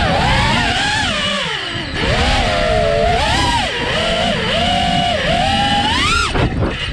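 Xilo Phreakstyle 6S FPV quadcopter's motors and propellers whining, the pitch rising and falling with the throttle, over a rush of wind on the onboard GoPro. About six seconds in the whine climbs sharply in a throttle punch, then drops away.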